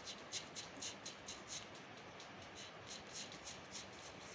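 A run of soft, quick clicks, about four a second for the first couple of seconds, then a few more near the end.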